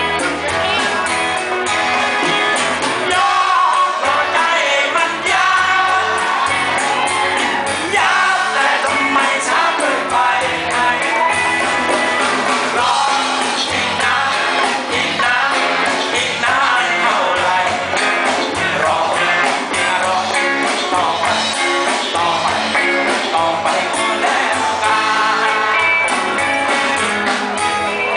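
A live band playing a song with a singer singing lead into a microphone.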